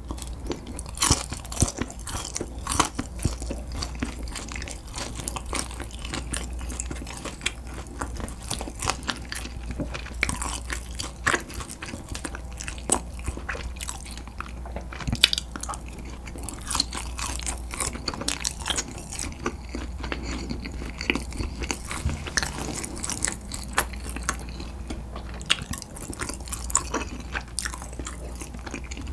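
Close-up chewing and biting of sweet-spicy gochujang-glazed fried chicken (dakgangjeong), with irregular crunching crackles throughout.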